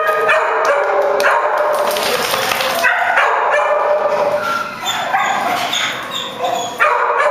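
Dogs barking and yelping without a break, several calls overlapping at different pitches.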